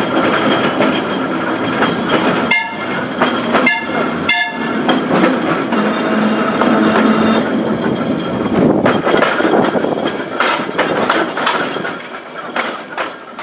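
Seaton Tramway electric tram running on its track: steady motor and wheel noise with clicking from the rails. There are three short high-pitched toots about two and a half to four and a half seconds in. The sound fades out near the end.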